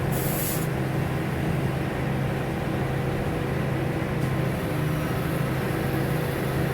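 Diesel engine of a mobile crane running steadily under load as it holds and swings a suspended box trailer, with a short hiss of air right at the start.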